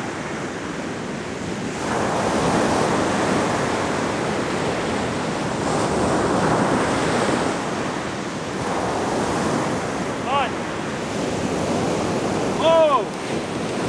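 Ocean surf breaking on a sandy beach, its hiss swelling and ebbing as each wave comes in, with wind buffeting the microphone. Two short pitched cries come through near the end.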